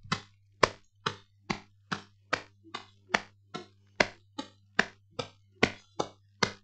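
Made-up footstep sounds: a steady run of sharp clicks, about two to three a second, at a brisk walking pace, standing in for the sound of walking.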